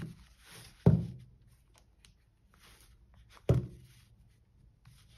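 Smartphones being picked up, turned face down and set back on a table: three dull knocks, the loudest about a second in and another about three and a half seconds in, with light rustling and handling between them.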